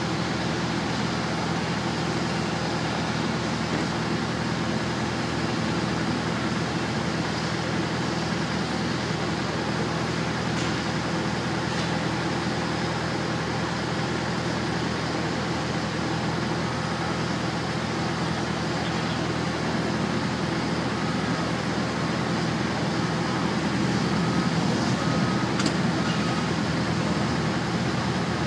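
Steady low drone of idling engines and ground equipment on an airport ramp, even throughout. From about halfway on, a faint high beep repeats about once a second.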